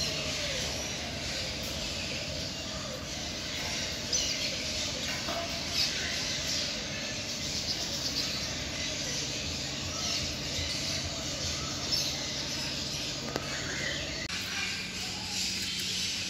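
Many caged parrots chirping and squawking in an aviary, their short high calls overlapping.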